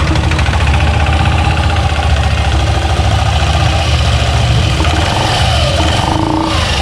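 Yamaha NMAX V2 scooter's single-cylinder engine running steadily at idle.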